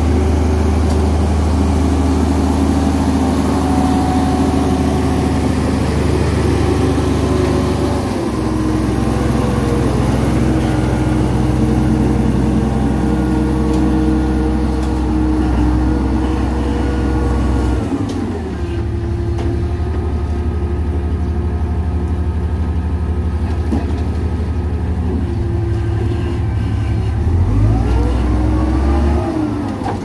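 Komatsu D58E crawler bulldozer's diesel engine running loudly as the machine works. Its note drops about eight seconds in and slides down again at around eighteen seconds, then rises and falls once more near the end.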